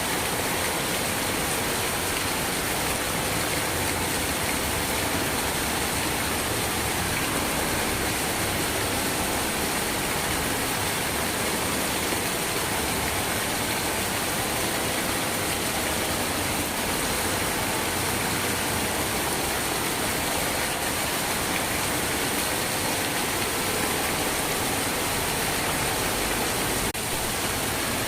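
Steady rain falling, a continuous even hiss with no let-up.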